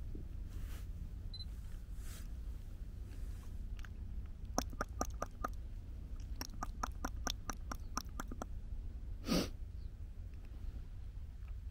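Sony a7III camera shutter firing in two rapid bursts of clicks, about five a second, around the middle. Near the end comes a single short puff of noise, louder than the clicks.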